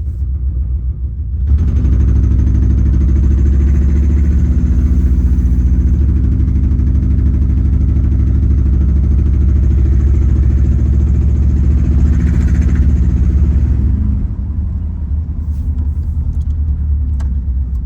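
Subaru Legacy's boxer engine idling steadily with no muffler, a loud, even exhaust drone. It gets louder about a second and a half in and eases back down near the end.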